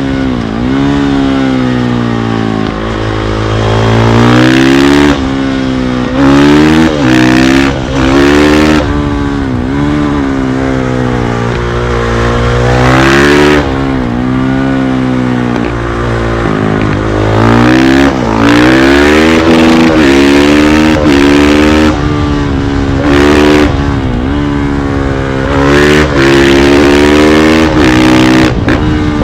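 KTM 500 EXC-F supermoto's single-cylinder four-stroke engine being ridden hard, its pitch climbing under throttle and dropping back again many times over.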